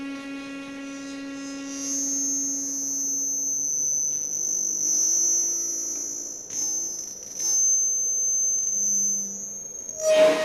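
Live electro-noise improvisation on a frame drum worked with a small handheld object, with electronics. A low hum dies away over the first two seconds, then a high thin whistling tone holds with slight wavers over quieter low tones and a few short scraping noises. A sharp crackling burst comes near the end.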